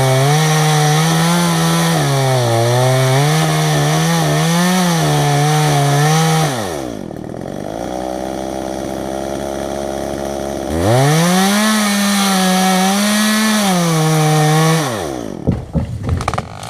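Chainsaw cutting a tree: the two-stroke engine runs at high revs with its pitch wavering under load, drops to idle for about four seconds, then revs up again into the cut. Near the end the engine winds down and a run of irregular sharp cracks and knocks follows.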